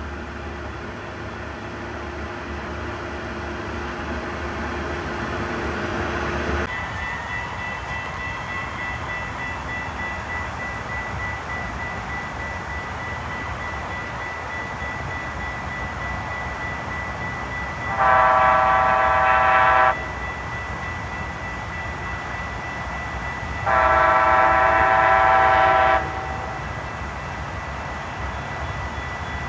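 A locomotive horn sounds two long blasts, each about two seconds, some four seconds apart, over the steady running noise of a train.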